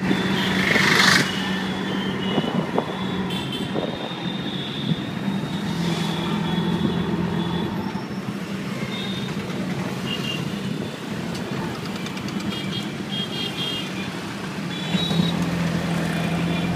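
An auto rickshaw's small engine running steadily under the open-sided passenger compartment, with the noise of surrounding street traffic and short horn toots now and then. A louder rush of traffic noise comes about a second in.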